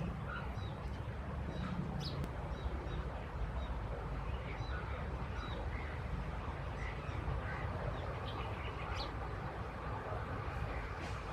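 Plain prinia calling: short high notes repeated at irregular intervals, a few seconds apart at times, over a steady low background rumble.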